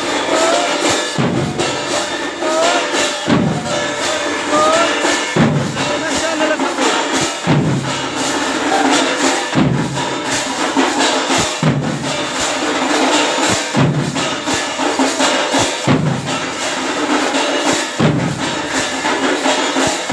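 Devotional drumming on a double-headed barrel drum, with a deep stroke about every two seconds in a steady rhythm, over constant metallic jingling of hand percussion and crowd voices.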